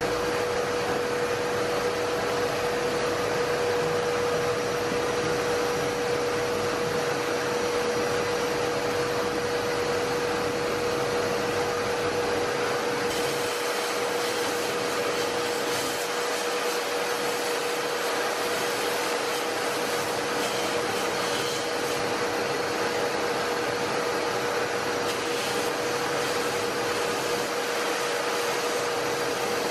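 Abrasive blast gun in a blast cabinet hissing steadily as it blasts rust off old vise parts, with a steady tone underneath; it starts abruptly at the beginning.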